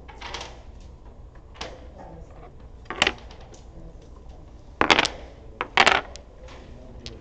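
Domino tiles set down sharply on a wooden table: one clack about three seconds in, then a cluster of louder clacks around five to six seconds.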